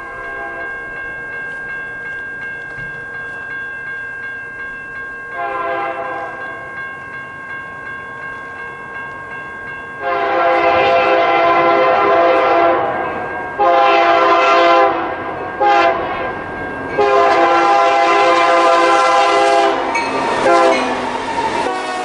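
Freight locomotive's multi-chime air horn blowing for a grade crossing: a short, fainter blast about five seconds in, then a loud long blast, a shorter one, a brief toot and another long blast, the standard crossing signal. Under it the crossing's warning bell rings steadily, and the train's wheels rumble past near the end.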